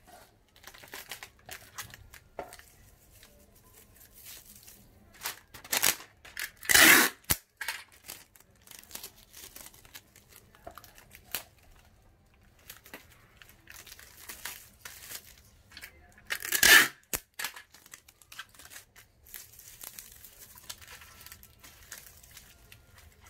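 Plastic raffia string crinkling and rustling as it is pulled, stretched and tied around a potted plant, with a few short, loud rips, about six to seven seconds in and again at about seventeen seconds.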